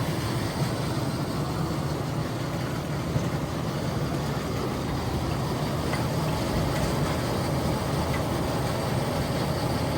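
Heavy diesel machinery running steadily, with a deep, even engine drone.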